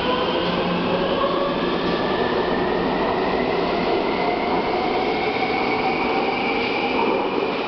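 Taipei Metro C321 subway train accelerating out of an underground station, its traction motors whining in several tones that rise steadily as it picks up speed, over steady wheel and track noise.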